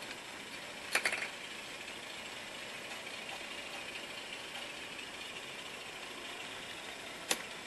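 HO scale model diesel-hauled grain train running along the track with a steady, faint mechanical running noise. A short cluster of sharp clicks comes about a second in, and a single click near the end.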